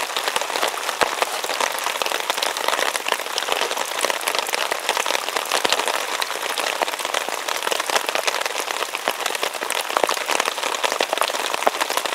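Steady rain of a rainstorm falling on and around a tarp, with many separate sharp drop hits.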